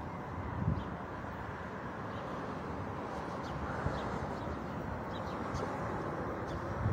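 Street ambience: steady traffic noise with a few faint, short bird chirps.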